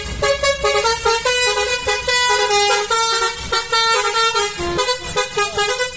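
A fast tune played on vehicle horns, the notes changing several times a second over a steady low rumble.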